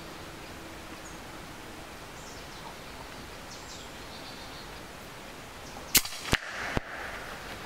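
A shot from a .22 EDgun Leshiy 2 PCP air rifle: one sharp crack about six seconds in, followed within the next second by two more sharp clicks.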